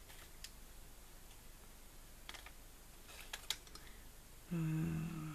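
A few faint, light clicks and taps of small objects being handled. About four and a half seconds in, a woman's voice holds one short, steady vowel, like a hesitation sound.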